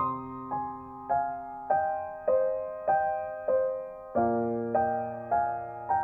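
Background piano music: one note struck about every half second, each ringing and fading.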